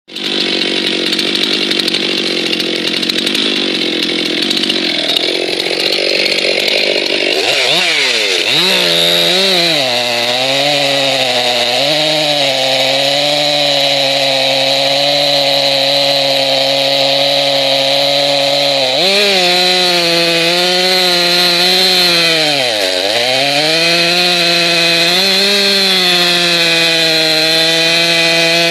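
Ported Stihl MS 441 C-M two-stroke chainsaw with square-ground chain, running at full throttle and cutting through a large log. Its pitch drops sharply about eight seconds in, and again about 19 and 23 seconds in, as the chain bites and pulls the engine down before it picks back up; the uploader finds the square-ground chain a bit grabby.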